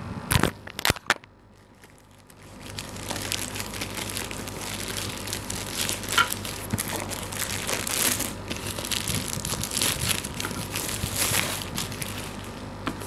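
Plastic courier mailer bag being torn open and crinkled by hand, with a cardboard box pulled out of it; the crinkling runs continuously from about two seconds in. A few sharp clicks come in the first second.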